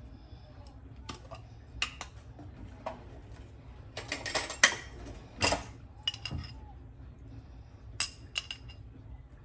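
A metal fork clinking and scraping against a glass jar of capers while capers are scooped out. There are scattered light clicks, a dense run of clinks and scrapes about halfway through, and a few sharp clinks near the end.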